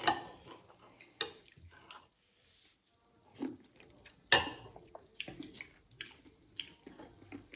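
Fork clinking and scraping against a bowl during a meal, with chewing, in scattered short clicks; the loudest knock comes about four seconds in, followed by a run of small ticks.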